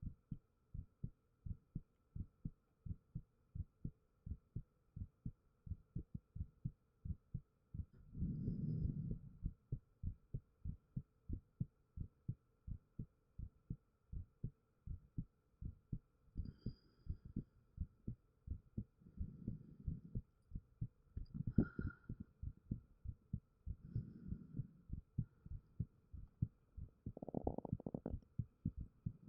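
Human heartbeat: an even run of soft, low thumps, about two a second. Several times a longer muffled low rush swells up over the beats, and once, a little past the middle, there is a sharper knock, under a faint steady hum.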